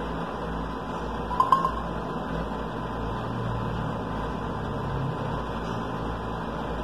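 Steady hum of room background noise, with a short double click and a brief beep about a second and a half in.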